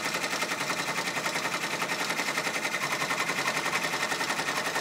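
Brother PR655 multi-needle embroidery machine stitching at speed: a rapid, steady, evenly repeating clatter of the needle striking through the fabric in the hoop.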